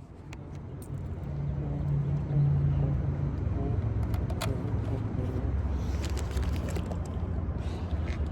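5-inch FPV quadcopter's motors and propellers spinning up and flying, mixed with wind noise over the onboard camera's microphone. The sound builds over the first two seconds and then holds steady, with a few sharp clicks.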